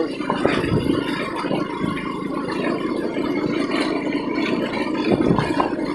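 KTM Duke 250's single-cylinder engine running steadily on a rough, rocky road, with a few knocks and rattles from the bike jolting over it.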